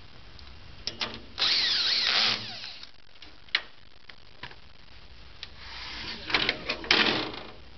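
Cordless drill/driver run for about a second, driving a screw into the trolley frame, with a few sharp clicks just before it. Near the end come a cluster of knocks and a short rattle as the part-built trolley frame is tipped over.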